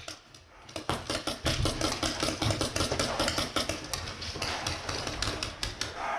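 Paintball markers firing a rapid run of shots in quick succession, starting about a second in.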